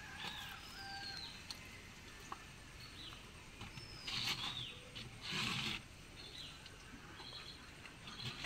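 Small birds chirping and calling, with short high notes that swoop down in pitch. Two brief scraping noises come midway.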